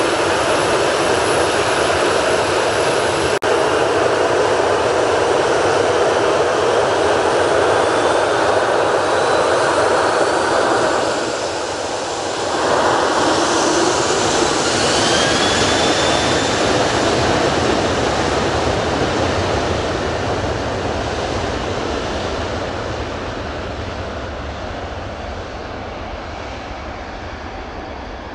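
Boeing 737-800's CFM56-7B jet engines at high power for takeoff on a wet runway: loud, steady jet noise with a whine that rises in pitch twice in the first half. The sound then fades gradually as the aircraft pulls away down the runway.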